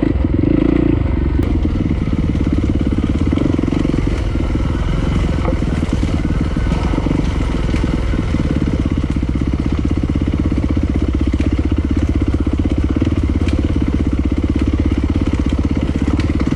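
Off-road motorcycle engine running steadily under way, with wind and track noise on the rider's helmet camera.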